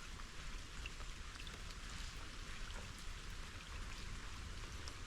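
Steady rain falling, with small drops pattering close by, and a low rumble underneath.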